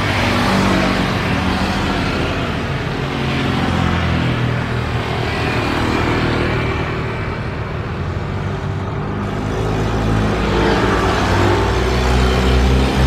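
Steady engine noise with a low hum and slow swells in loudness.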